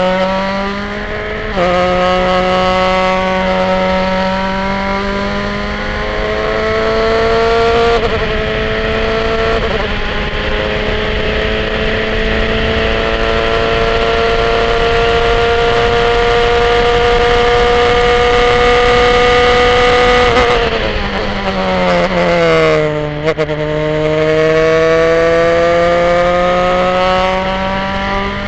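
Formula 3 car's four-cylinder racing engine at full throttle from the cockpit, climbing through the gears with quick upshifts in the first ten seconds, then held at high revs on a long straight. About twenty seconds in the revs fall in steps through downshifts under braking, then climb again as it accelerates out of the corner, with another upshift near the end.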